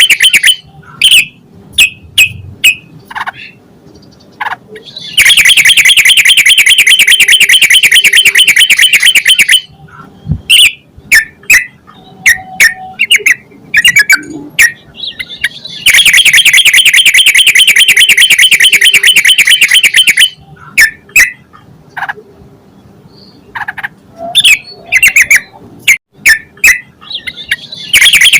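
Yellow-vented bulbul singing loudly: two stretches of rapid, chattering song about four seconds each, with short separate chirps between them and the chatter starting again near the end.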